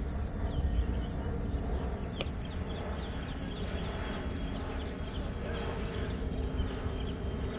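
Birds chirping over and over above a steady low rumble, with one sharp click about two seconds in.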